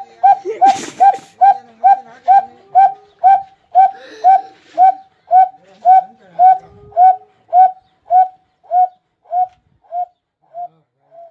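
A man imitating an old well-pump engine with his mouth: a steady chain of short whistled beats, about two a second, like the engine's exhaust note. Toward the end the beats slow and grow fainter, as if the engine is running down. A brief hiss comes about a second in.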